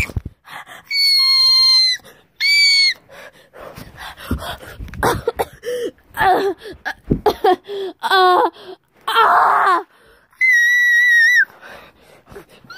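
A run of high-pitched wordless squeals and cries, several held as steady shrill notes about a second long and others bending up and down, broken by gaps and sharp handling knocks.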